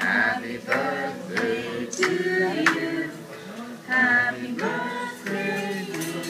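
A small group of people singing a birthday song together.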